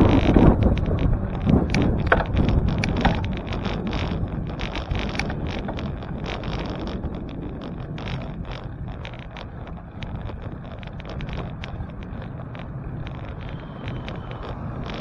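Wind on the microphone and road rumble from a moving bicycle, with scattered rattling clicks. Loudest at the start, growing gradually quieter.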